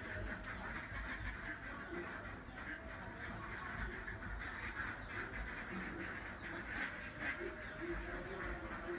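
Ducks quacking in the background.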